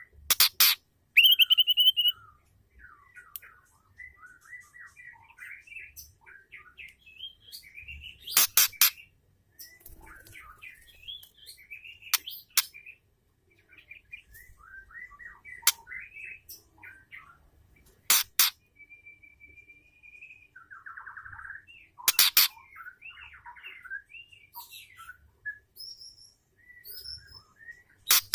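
Female white-rumped shama calling: loud, sharp, harsh notes every few seconds between quieter rapid chirps and short whistles.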